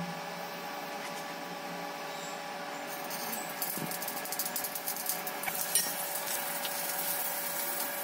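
Hot oil in a kadai begins to sizzle and crackle about three seconds in as cumin seeds and chopped vegetables are added, over the steady hum of the induction cooktop.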